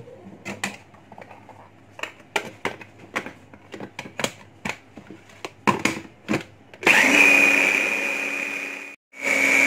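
Plastic knocks and clatter as the lid and motor head of a Kiwi electric food chopper are fitted onto its jug, then the motor runs with a steady whine for about two seconds blending a thick creamy mixture, stops suddenly, and starts again in a second pulse near the end.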